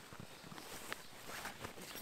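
Faint, irregular footsteps on the forest floor, a light scatter of crackles and soft crunches.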